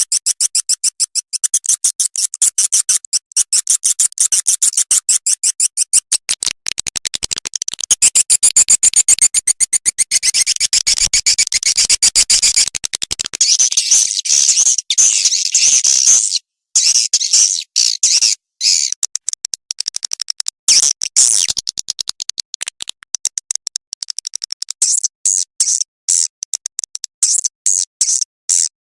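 Swiftlet lure recording: a rapid stream of high-pitched clicking, twittering swiftlet chirps with a few brief breaks, the kind of call track played in swiftlet houses to draw the birds in to roost and nest.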